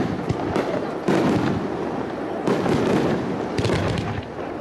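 Aerial fireworks bursting one after another, with crackling between the bursts.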